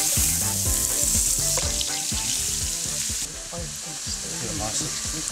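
Butter sizzling loudly in a hot cast-iron pan while a wooden spatula scrapes and stirs it; about three seconds in the sizzle drops to a softer frying of grated carrots being stirred in the pan.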